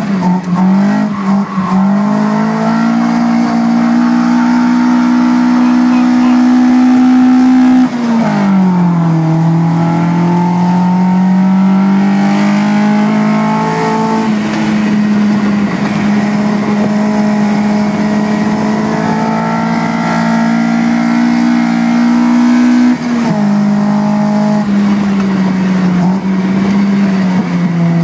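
Toyota Beams 3S-GE four-cylinder engine in an AE86 drift car, heard from inside the cabin and held at high revs while drifting. The revs drop sharply and climb back twice, about eight seconds in and again later on.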